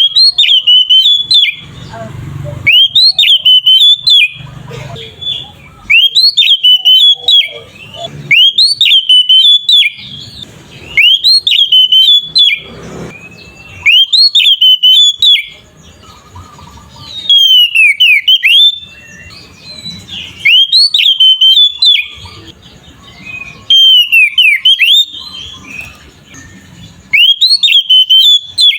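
Oriental magpie-robin (kacer) singing in the loud, open 'ngeplong' style: the same quick whistled phrase of rising and falling notes, about a second and a half long, repeated over and over roughly every two seconds.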